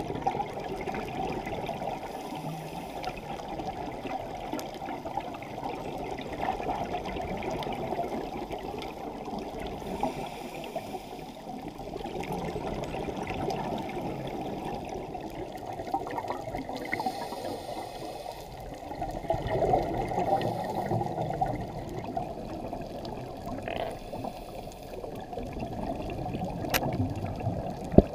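Muffled rushing and bubbling of water heard underwater through a GoPro housing, the steady sound of scuba regulator exhaust bubbles, swelling louder a few times. A single sharp click comes near the end.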